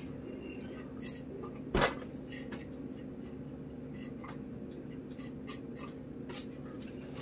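Quiet room with a steady low hum and scattered light clicks of a fork on a plate, with one sharp knock about two seconds in.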